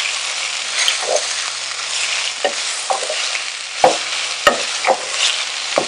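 Shredded chicken with onions and chilies sizzling in oil in a nonstick pot while a wooden spatula stirs and turns it, with a few short knocks of the spatula against the pot.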